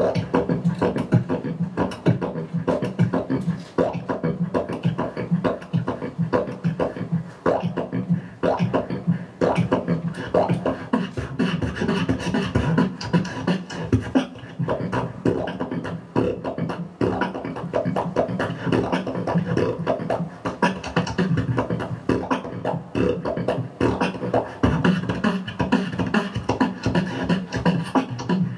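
Solo beatboxing into a handheld microphone: a fast, dense stream of mouth-made drum hits over a steady low hum, running without a break.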